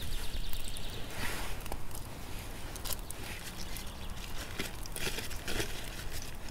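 Paper rustling and crinkling as food is unwrapped by hand, with scattered small crackles and clicks.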